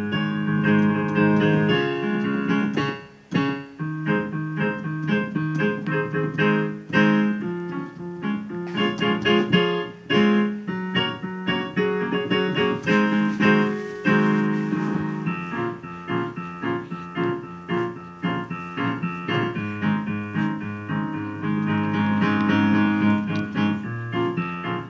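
Electronic keyboard played in a piano voice: a continuous piece of chords and melody notes, with a short break about three seconds in.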